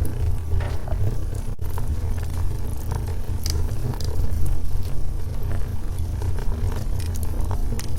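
Wood fire burning in a fireplace: a steady low rumble of the flames with scattered small crackles and pops from the logs.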